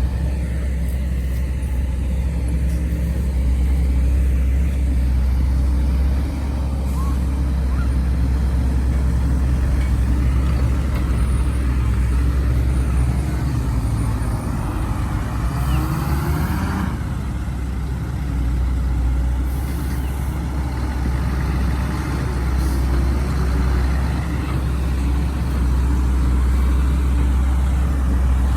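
Heavy diesel engine of a Volvo excavator running steadily at work, with a rising whine in the middle.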